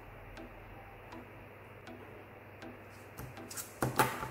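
Steady, faint ticking, about four ticks every three seconds. Near the end come louder knocks and scraping as the copper ruler is shifted across the paper.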